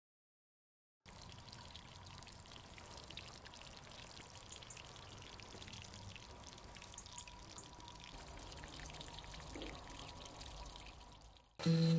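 Faint trickle of running water with small drips, starting about a second in.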